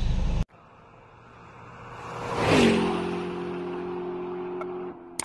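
A car speeding past on a gravel road: a rush of engine and tyre noise builds to a peak about two and a half seconds in, and its engine note drops in pitch as it passes, then holds steady and fades. Just before this, about half a second in, in-cabin road noise cuts off abruptly.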